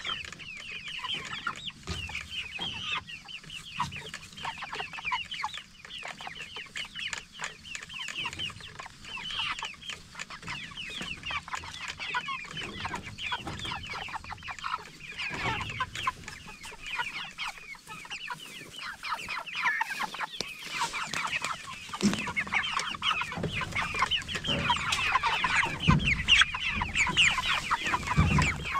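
A flock of Cornish Cross broiler chickens keeping up a constant chatter of short, high peeps and soft clucks, growing busier and louder in the last third. A few low thuds come near the end.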